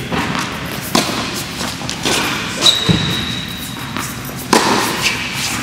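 Tennis balls being struck with a racket and bouncing on an indoor hard court: a series of sharp hits and thuds roughly a second apart, the loudest about four and a half seconds in.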